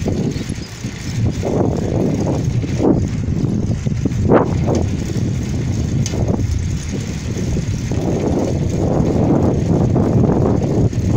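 Steady rumble of riding along an asphalt road, with wind buffeting the microphone in irregular swells.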